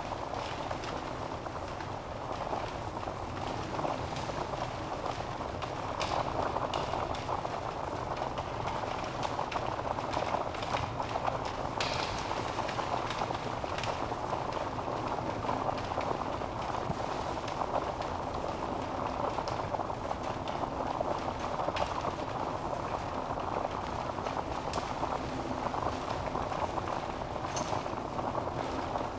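Wood fire burning in a fireplace: a steady rushing hiss of flames with scattered sharp crackles and pops from the burning logs.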